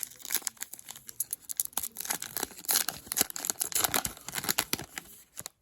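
Trading card pack wrapper crinkling and tearing, with cards shuffled and handled: a dense run of irregular sharp crackles.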